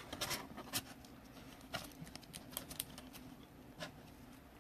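Faint, scattered clicks and light scraping of a trading card being handled and pushed into a rigid plastic top loader that is too tight for it.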